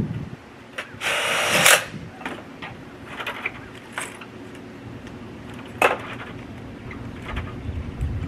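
Tools being handled during porch framing work: a brief rushing burst about a second in, then scattered clicks and knocks, with one sharp knock near the middle.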